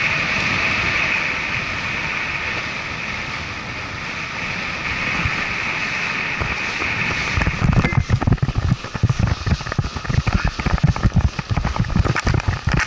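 Wind rushing over an action camera's microphone during a paraglider's final low glide, a steady hiss. From about eight seconds in, irregular low thumps and buffeting take over as the pilot touches down on the sand and lands on foot.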